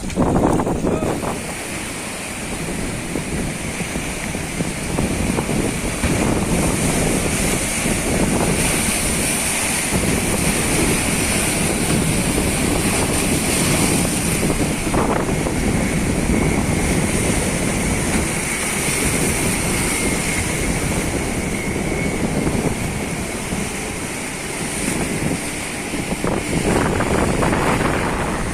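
Small fishing boat under way in rough, windy sea: wind buffeting the microphone and waves breaking around the hull, over the steady running of the boat's motor.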